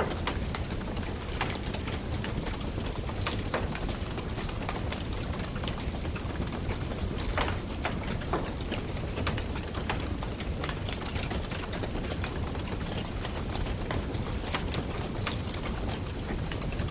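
Wood campfire burning: a steady hiss and low rumble with frequent irregular crackles and sharp pops from the burning wood.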